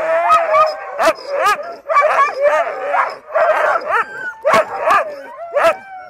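A team of excited sled dogs howling and yipping together, many voices overlapping, with sharp barks cutting through every second or so: the eager clamour of dogs waiting to set off.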